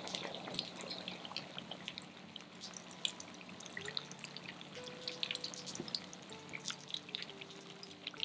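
Spring rolls deep-frying in shallow oil in a frying pan at low heat (about 160 °C): a faint, soft sizzle with many fine crackling pops.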